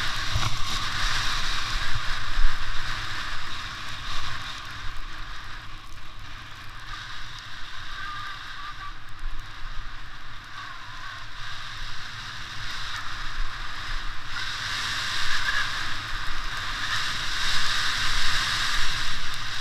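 Snowboard sliding and carving down groomed snow: a steady scraping hiss from the board on the snow, with a low rumble beneath. It is louder near the start, eases off in the middle, and swells again for the last few seconds.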